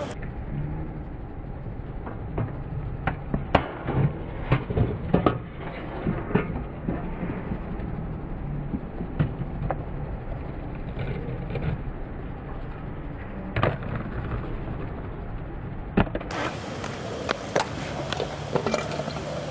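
Kick scooter wheels rolling on concrete ramps, with irregular clacks and knocks of scooters landing and hitting the surface.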